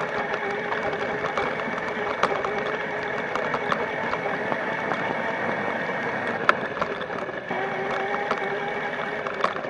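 Small dirt bike engine running at a steady speed, a buzzing drone with scattered ticks and rattles and one sharp click about six and a half seconds in; its note shifts a little about seven and a half seconds in.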